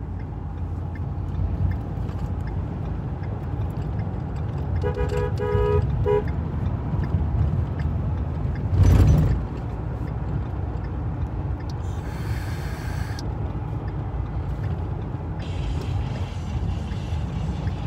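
Steady low road and engine rumble heard from inside a moving Ford Super Duty pickup's cab. About five seconds in, a two-tone car horn gives a few short honks, and about nine seconds in a louder rush of noise passes briefly.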